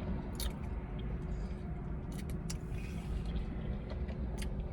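Close-miked chewing of a crispy pizza puff, with a few sharp crunching clicks, over a steady low rumble.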